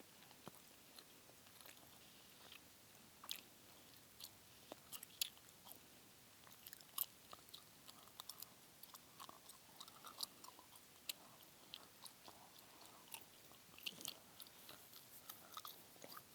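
Close-miked mouth sounds of gum being chewed: irregular, sharp, wet clicks and smacks, a few a second.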